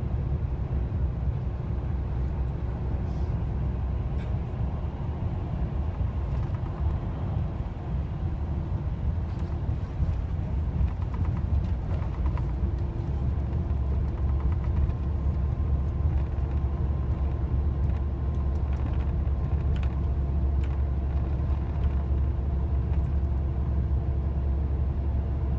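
Steady low rumble with a faint even hum above it and a few faint ticks scattered through.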